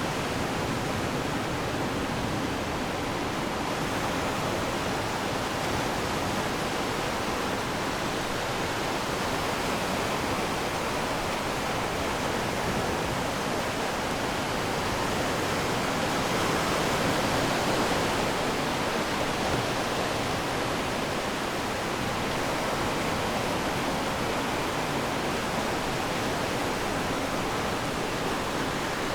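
Ocean surf washing steadily on the shore, a continuous rushing hiss that swells slightly about two-thirds of the way through.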